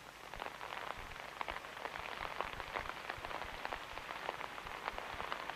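Rain pattering: a dense, irregular patter of small drops.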